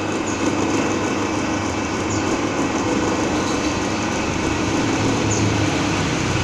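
A steady mechanical drone from a running motor or machine, holding the same level throughout.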